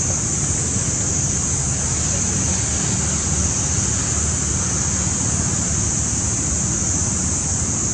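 Steady outdoor background noise: a constant high-pitched hiss over a low rumble, with no distinct sounds standing out.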